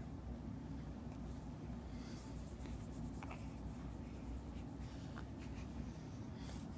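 Faint scratching and light ticking over a steady low hum, with a quick run of fine ticks a couple of seconds in.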